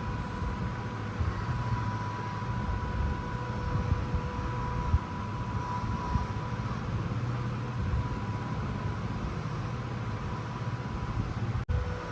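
Small electric motor and gearbox of a 1/16-scale RC off-road truck running with a steady whine, over a rough low rumble.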